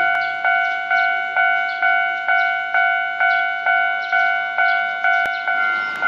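Japanese railway level crossing warning bell ringing, a rapid, evenly repeated ding about twice a second, signalling that a train is approaching.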